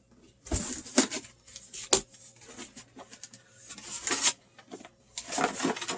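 Cardboard box and packaging being opened by hand: bursts of rustling, scraping and tearing, with a sharp snap about two seconds in.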